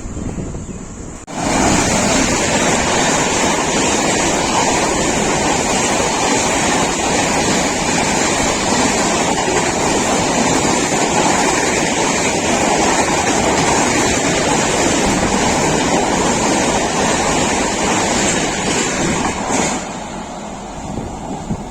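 A train running through the station at speed: a loud, steady rushing and rumbling that starts suddenly about a second in and eases off near the end.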